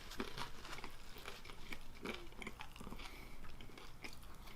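A person chewing food close to the microphone: irregular small wet clicks and light crunches of mouth noise.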